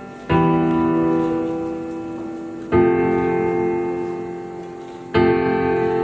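Slow instrumental music: a piano-like keyboard chord is struck about every two and a half seconds, three times, each ringing on and fading before the next.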